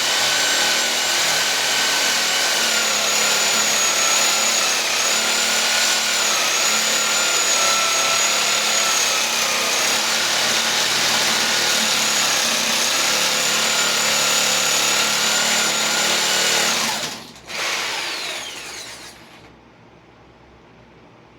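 Reciprocating saw (Sawzall) running steadily with a wavering motor whine as it shaves wood. About 17 seconds in it cuts off, revs once more briefly, then winds down with a falling whine.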